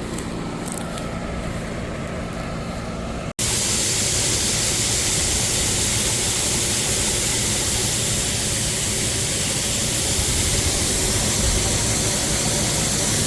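Vehicle engine idling with a steady hum. After a sudden cut about three seconds in, there is a louder, steady rush of road and wind noise from the vehicle on the move.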